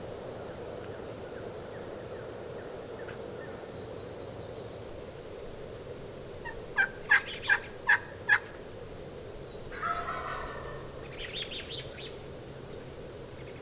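Wild turkey calling: a run of five loud, sharp yelps in quick succession, then about a second and a half later a Merriam's gobbler gobbling, a rattling burst that trails off in quieter rapid notes.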